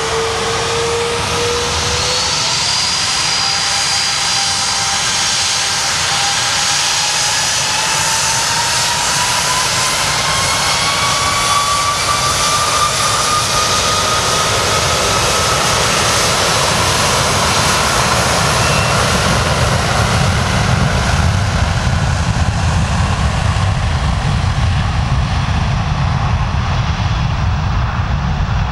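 Airbus A330-200 jet engines spooling up to takeoff power: whines that rise steadily in pitch over the first fifteen seconds or so, over a loud, continuous rushing noise. A low rumble grows stronger in the second half as the airliner accelerates down the runway.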